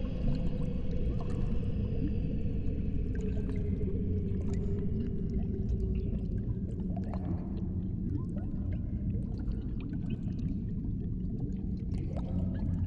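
A low, steady droning rumble with a faint held tone that sinks slowly in pitch, over scattered small splashes and clicks of shallow swamp water.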